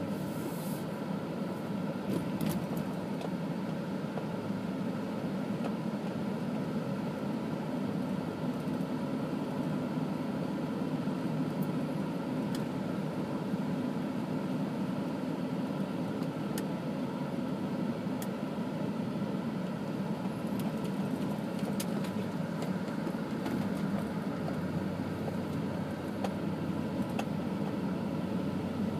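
Steady engine and tyre rumble of a car driving at low speed, heard from inside the cabin, with a few faint clicks.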